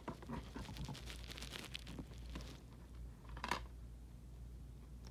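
Plastic seal on a DVD case crinkling and crackling as it is picked at and peeled off: a run of small crackles for the first two and a half seconds, then one louder rustle about three and a half seconds in.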